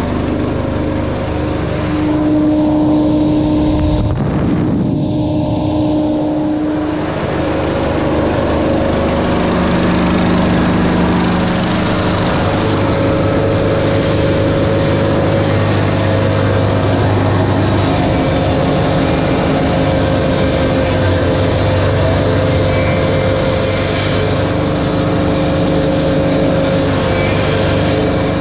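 Engine-driven straw mulch blower running steadily, blowing straw over a freshly seeded lot, with a steady engine drone under the rushing air.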